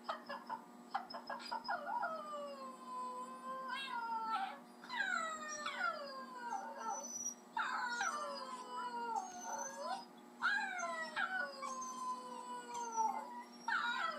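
Cairn terriers howling: a series of drawn-out howls, each starting high and sliding down in pitch, one dog joining in with another's howls played back from a video, their voices overlapping at times.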